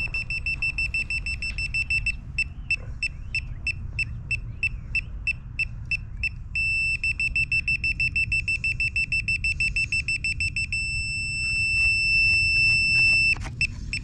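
DeWalt laser-level receiver beeping at a high pitch as it is moved along a grade stake to find the rotating laser's beam. It beeps about three times a second, then very fast from about seven seconds in, then near eleven seconds holds a steady tone, the on-grade signal that it sits level with the beam, which cuts off about a second before the end. A low rumble runs underneath.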